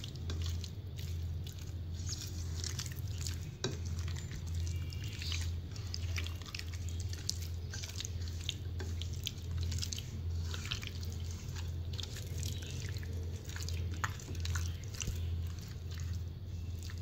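Wet squelching and smacking of a bare hand kneading raw chicken pieces in a thick, creamy spice marinade on a plate, in many short irregular squishes. A steady low hum runs underneath.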